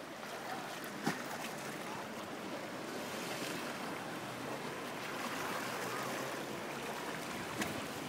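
Sea waves washing gently on a rocky shore, a steady rush of surf, with a brief sharp click about a second in and another near the end.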